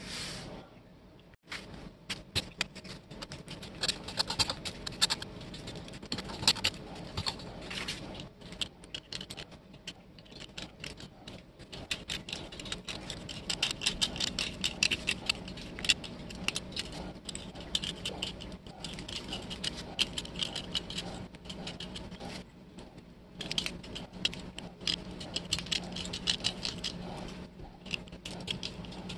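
Small knife blade scraping crusted grime off the handle of an antique putty knife: a rapid, irregular run of sharp scratches, pausing briefly once.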